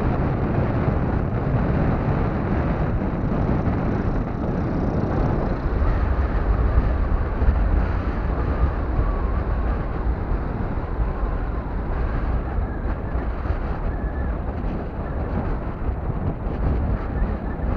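Strong wind buffeting the camera microphone: a loud, continuous low rumble.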